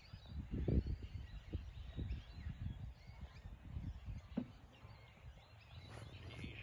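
Low, uneven outdoor rumble with irregular surges, with faint bird chirps over it.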